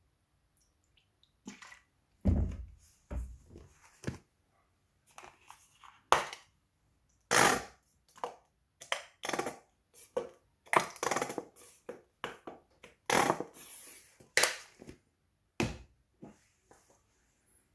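Crunching of someone biting and chewing crispy fried chicken, in irregular crackly bursts, with one heavier bite about two seconds in.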